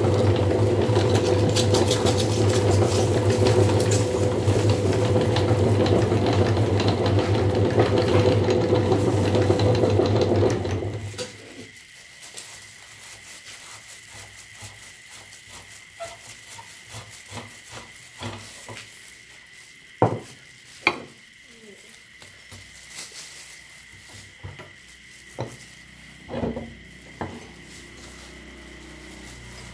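Electric meat grinder's motor running with a steady hum for about eleven seconds, then switched off. Then scattered metal clinks and knocks as the grinder head is taken apart, with two sharp clanks about twenty seconds in.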